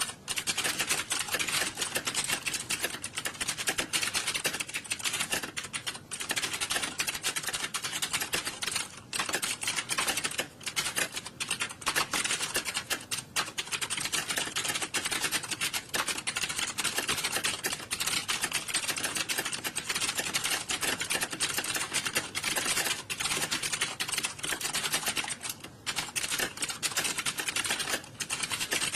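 Many computer keyboards being typed on at once: a dense, continuous clatter of key clicks with only brief lulls.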